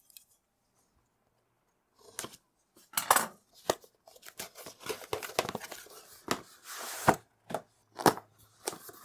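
Cardboard retail packaging being opened by hand. After about two seconds of near silence, there is a run of uneven snips, rips and scrapes as scissors cut the box's seal, the card outer box is torn open, and the black inner box is handled on a wooden desk.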